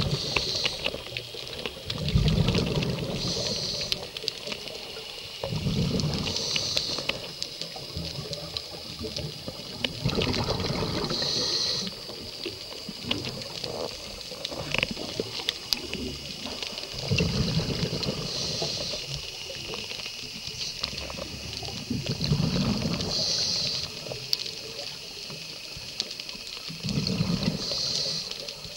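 Scuba diver breathing through a regulator underwater: a rumbling gush of exhaled bubbles, then a short hiss from the demand valve on the inhale. The cycle repeats every five seconds or so.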